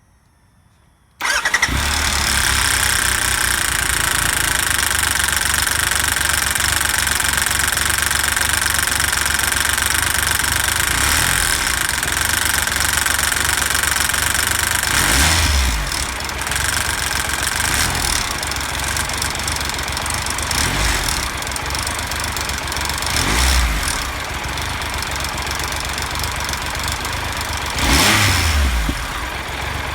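A 2017 Triumph Tiger Explorer's three-cylinder engine starts about a second in and runs with a loud metallic cam chain rattle, the sign of a slack timing chain before the tensioner has pumped up. The rattle eases in the second half as the tensioner takes up the slack, and the engine note rises briefly three times.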